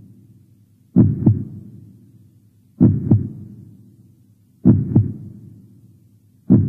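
Slow heartbeat sound effect: deep lub-dub double thumps, each fading away, repeating about every two seconds, four times.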